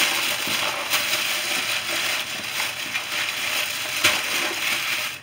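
Aluminium foil crinkling and crackling steadily as it is wrapped tightly around a roast, with a sharper crackle about four seconds in.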